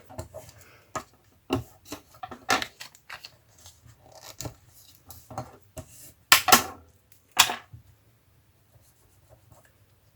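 Paper backing being torn off a piece of paper ephemera, in a run of short, irregular rips; the loudest rips come between about six and seven and a half seconds in.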